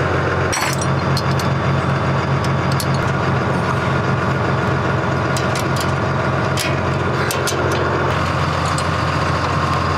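A truck engine idling steadily, with scattered sharp clicks and clinks of chains and a ratchet strap being worked to tie a vehicle down.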